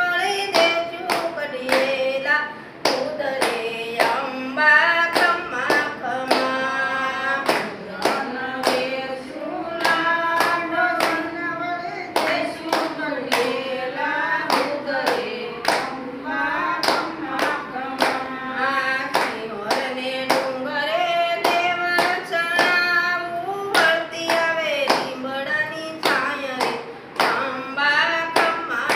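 A group of women singing a devotional song to the goddess Chamunda together, clapping their hands in a steady beat.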